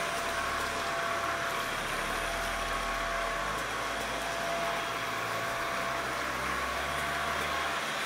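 Aeno SC3 cordless stick vacuum running steadily with its motorized floor brush on a laminate floor: an even rush of air with a constant whine over it.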